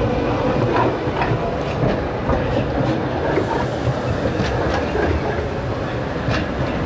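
Red articulated low-floor city tram passing close by, its steel wheels running on the track with a steady rumble and a dozen or so sharp, irregular clicks and knocks.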